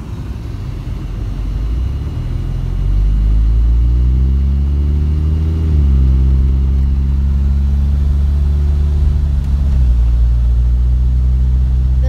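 Car engine pulling away and accelerating, heard from inside the car: its pitch climbs for a couple of seconds, drops sharply about six seconds in as it shifts up a gear, holds steady, then drops again near the end.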